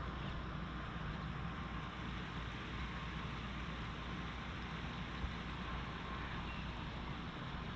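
Steady outdoor background noise, an even rumble and hiss with no distinct source, broken once by a soft low knock about five seconds in.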